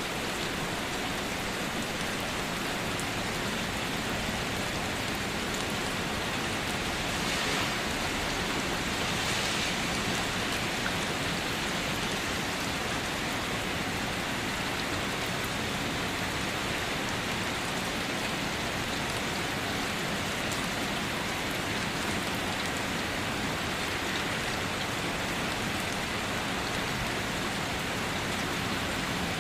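Steady rain falling, an even hiss of drops on a surface that swells slightly for a few seconds near a third of the way through.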